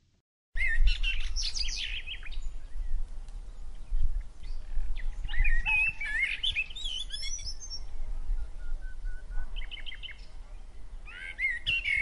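Several small birds chirping and whistling in quick, warbling phrases that come in clusters, over a steady low rumble.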